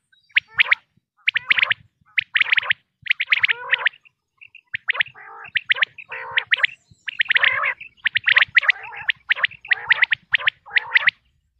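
Common quail calling in short, rapid bursts of clipped notes, about one burst a second, with a brief pause around four seconds in.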